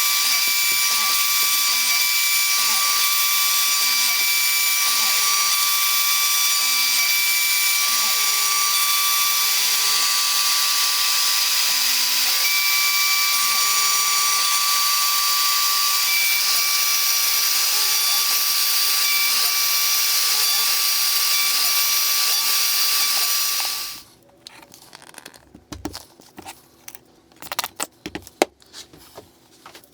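CNC router spindle cutting 12 mm birch plywood: a loud, steady hiss with a constant high whine, which cuts off suddenly near the end. After it come a few scattered knocks and taps.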